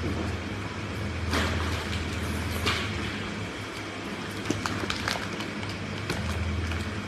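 A steady low hum with scattered small clicks and a couple of louder knocks.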